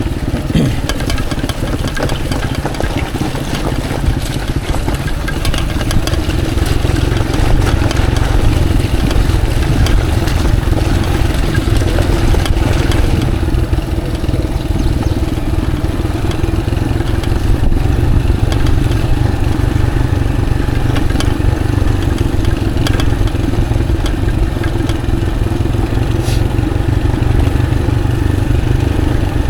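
Motorcycle engine running steadily while riding, with a constant low rumble of wind and road noise on the microphone.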